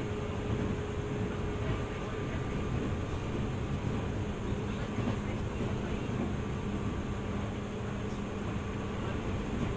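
JR East 205 series electric train (600 subseries) running along the line: a steady rumble of wheels on rail, with a faint humming tone that gives way to a lower one about three seconds in.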